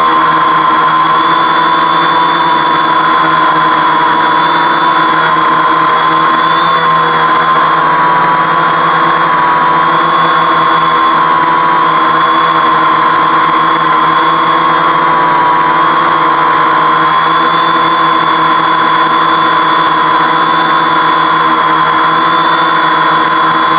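Homemade 520 mm quadcopter's motors and propellers whirring steadily in a hover, the pitch wavering slightly as the flight controller corrects its hold.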